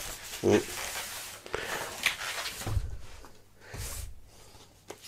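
Bubble wrap crinkling and cardboard rustling as a bubble-wrapped LP is handled and laid down in its box, with a few soft thumps.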